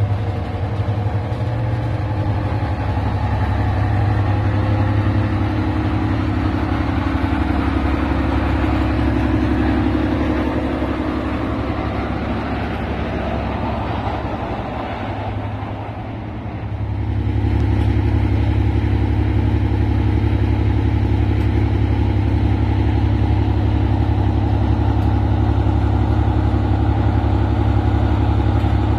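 Class 55 Deltic diesel-electric locomotive, its two Napier Deltic two-stroke engines running with a steady low drone as it moves slowly past. The sound dips briefly about fifteen seconds in, then the engines are heard idling steadily with the locomotive standing.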